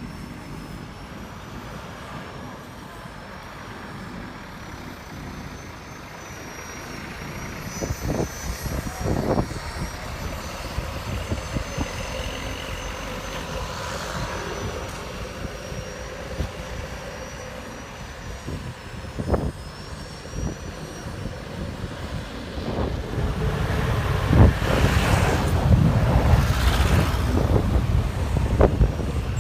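Road traffic with heavy vehicles going by, with a few sharp knocks; a big vehicle's low engine rumble swells and is loudest in the last few seconds as it passes close.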